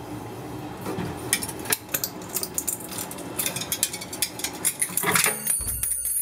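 Knife blade scraping and cutting through the silicone seam between the aquarium's glass panes, with many small irregular clicks of metal on glass.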